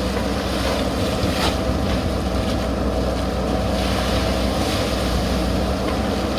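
JCB backhoe loader's diesel engine running steadily with a low rumble, under an even hiss.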